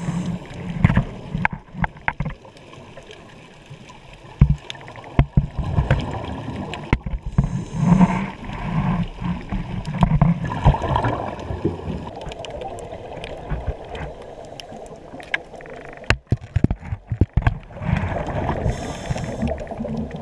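A scuba diver breathing through a regulator underwater: short hissing inhales followed by longer bubbling, gurgling exhales, a few slow breaths in all. Scattered sharp clicks and knocks run through it.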